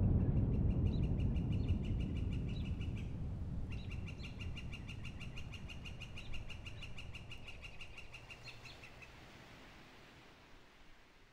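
A bird's high, rapid trill held at one steady pitch, in two runs: about two seconds, a short pause, then about five seconds. Beneath it a low rumble fades away.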